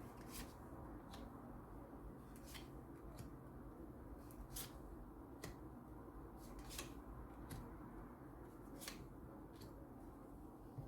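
Tarot cards being handled for a clarifying draw: about ten soft, short card snaps and flicks, unevenly spaced roughly a second apart.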